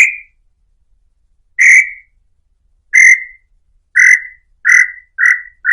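Tataupa tinamou (inhambu-chintã) singing: a series of about seven short notes that come ever faster and fall slightly in pitch.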